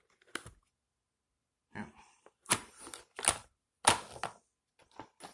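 Knocking and scraping of a generator's plastic housing and control panel being handled and shifted: a few light clicks, then a cluster of loud knocks and scrapes in the middle, the three loudest less than a second apart.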